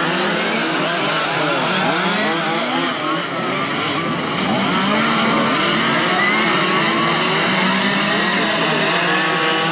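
A pack of 1/5-scale petrol RC touring cars racing. Their small two-stroke engines buzz and rise and fall in pitch as they rev, many engines overlapping at different pitches.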